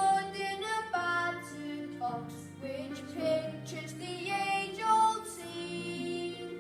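Children singing a slow song in held notes over musical accompaniment.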